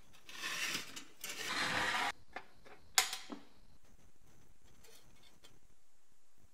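A 1930s Kitway kitchen scale's metal case and mechanism being handled and taken apart: about two seconds of scraping and sliding of metal parts, then one sharp metallic clack about three seconds in, followed by a few faint clicks.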